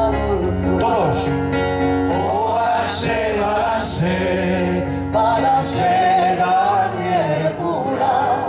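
A woman singing an old Spanish cuplé, holding long wavering notes, accompanied by sustained chords on an electric keyboard.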